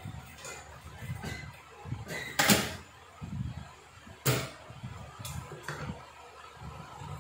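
Two sharp knocks, the loudest about two and a half seconds in and another just past four seconds, among lighter clicks and handling noise from work at an industrial sewing machine table.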